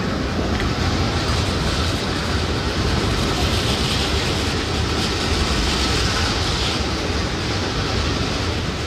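Steady noise of city street traffic, a continuous rumble and hiss that grows a little stronger in the middle.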